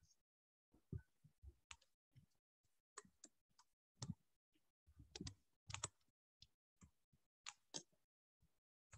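Faint, irregular clicks and light taps of a stylus writing on a tablet, some with a dull low thud.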